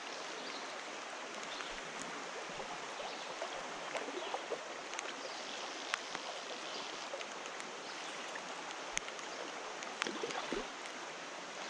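Steady rushing of a creek's current, with a few faint sharp ticks scattered through it.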